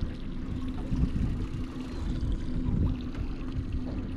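Wind and water noise around a small open boat at sea: an uneven low rumble with a steady low hum underneath.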